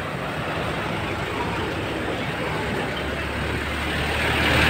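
Road traffic noise, with a motor scooter's engine coming up from behind and passing close; its low hum grows louder from about three seconds in.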